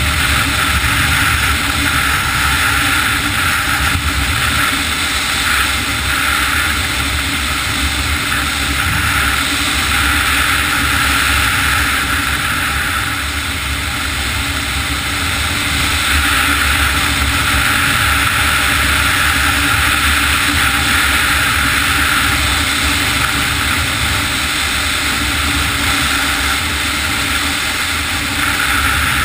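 Snowmobile running steadily at cruising speed along a trail.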